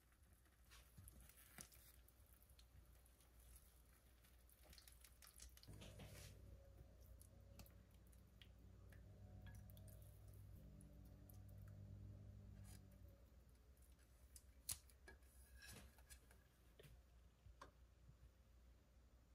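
Very quiet: scattered faint clicks and light wet sounds of a spatula lifting boiled beef shank out of the broth onto a ceramic plate. A faint low hum comes in about six seconds in and fades out after about seven seconds.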